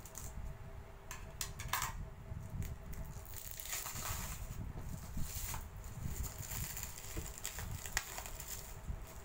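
Clear plastic shrink wrap crinkling and crackling as it is cut with scissors and peeled off a tablet box, with many sharp clicks, busiest in the middle.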